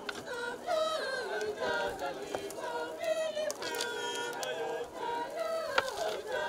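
A group of people singing together in chorus, with one sharp knock about six seconds in.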